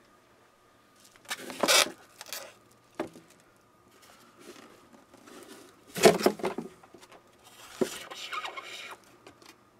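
Packaging being handled by hand: short rustles at about one and a half, six and eight seconds in, and sharp little knocks about three and eight seconds in.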